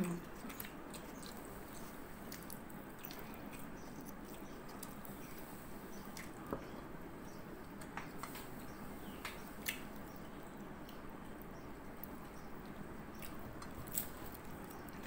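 Quiet eating by hand: chewing and fingers pressing and gathering rice on a plate, with a few small sharp clicks over a steady background hiss.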